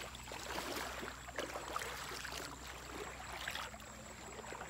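Steady low rush of shallow river water with small splashes as a cast net is hauled back through it.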